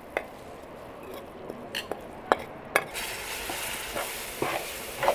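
Metal spoon stirring flour toasting in butter in a large metal pot for halva, with a handful of sharp clinks of the spoon against the metal. Sizzling sets in about three seconds in.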